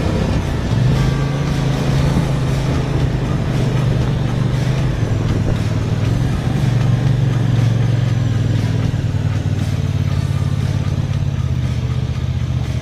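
Benelli Tornado 552R motorcycle engine running at low revs as the bike rolls slowly, a steady low hum. The pitch drops a little about five seconds in, and the sound eases slightly near the end.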